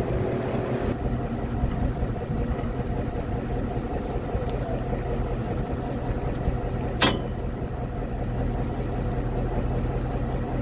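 Fishing boat's engine running steadily with a low, even hum. A single sharp click about seven seconds in.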